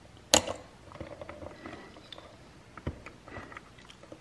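Small clicks and handling noises of wires being worked and crimped spade connectors pushed onto the terminal tabs of a VFD's control circuit board, with one sharp click about a third of a second in and lighter ticks after.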